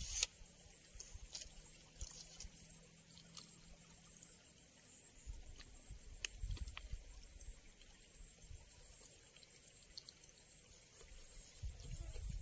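Faint outdoor ambience: insects keep up a steady high-pitched drone, with a few scattered light clicks and some low rumbles, one about halfway through and one near the end.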